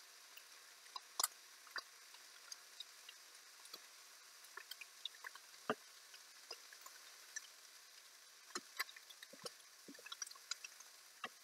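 Moose sausages frying in a nonstick pan: faint, irregular pops and crackles of spitting fat, a few sharper than the rest. Near the end a spatula is pushed into the pan among the sausages.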